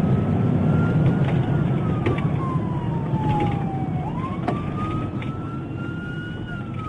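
Police siren in wail mode: one tone that climbs to a peak and slides slowly back down, repeating about every five seconds. Under it runs the steady low rumble of a car's engine and tyres while driving.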